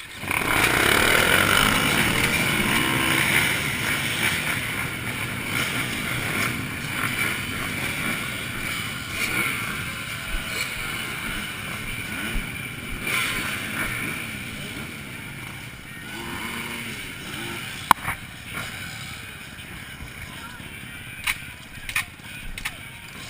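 A field of motocross bikes launching together off the start gate, many engines revving hard at once, then slowly fading as the pack pulls away. A few sharp clicks come near the end.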